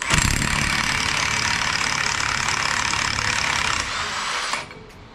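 Cordless impact wrench hammering on a large axle hub nut, breaking it loose. It runs for about four and a half seconds, a little quieter in its last second, then stops.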